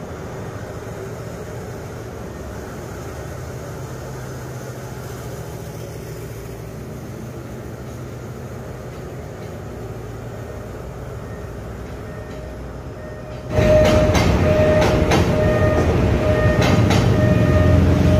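Metro train noise: a steady low rumble, then about 13 seconds in a sudden jump to much louder train noise with a steady whine and a few sharp clicks.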